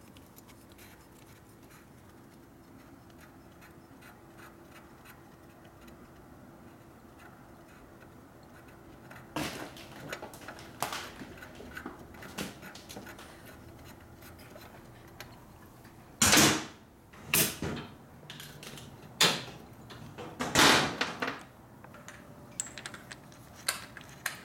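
Hand tools being handled at a motorcycle engine: faint steady hum at first, then scattered clicks and knocks from about nine seconds in, and four loud short bursts of noise in the second half.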